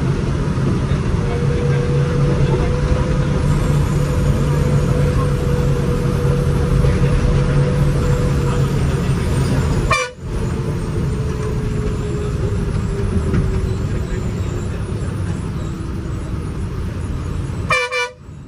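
A bus engine running steadily with a held whine over a low hum, and the bus horn sounding in short toots, once about halfway through and again in a quick series near the end.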